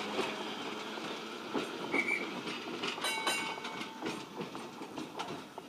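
Vintage electric tram running away along its track, its wheels clicking over the rail joints, with short high-pitched squeals about two and three seconds in. The sound fades as the tram draws away.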